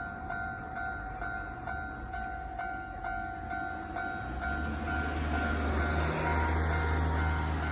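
Railway level-crossing warning bell ringing steadily at about two rings a second. From about halfway through, a Hankyu Kyoto Line train's low rumble comes in and grows louder as it nears the crossing.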